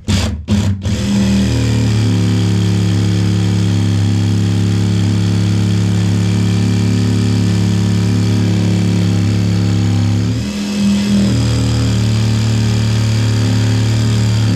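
Electric power tool motor: a few short trigger bursts, then running steadily under load with a brief slow-down about ten seconds in before picking up again.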